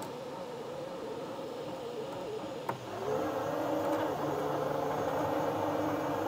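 Motors of a Bambu Lab P1S 3D printer and its AMS filament unit whirring steadily as the printer begins its first print. After a click about three seconds in, the whir gets louder and rises slightly in pitch, and a second, lower hum joins it.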